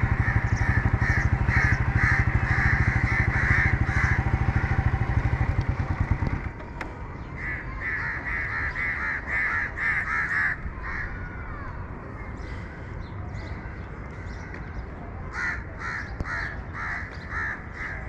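Crows cawing in three bouts of rapid, repeated caws. A small engine runs steadily under the first bout and cuts off suddenly about six seconds in.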